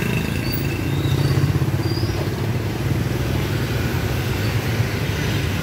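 Motorbike and car engines running close by in the street, a steady low rumble as a motorbike passes near.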